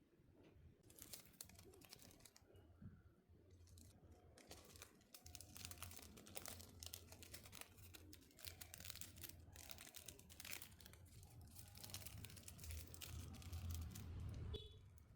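Faint crinkling and rustling of a thin sheet being handled, in many quick bursts that start about a second in and grow louder toward the end, over a steady low hum.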